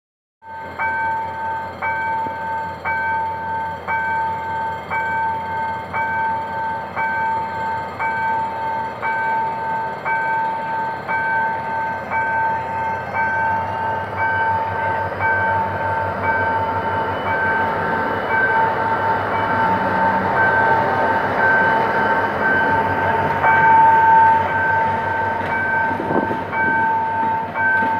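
Level crossing warning bells ringing in an even beat, about one strike a second, over the rumble of a GM GT22 CW-2 diesel locomotive hauling passenger coaches across the crossing. The engine and wheel noise grow louder from about halfway as the locomotive passes.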